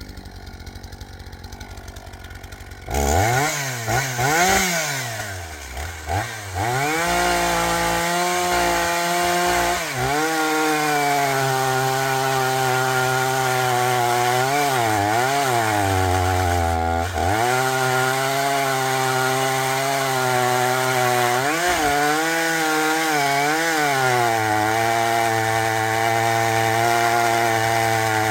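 A roughly 45 cc two-stroke chainsaw revs up about three seconds in, its pitch rising and falling with the throttle. It then runs at full throttle cutting through an oak log, the engine note dipping several times as it bogs under load.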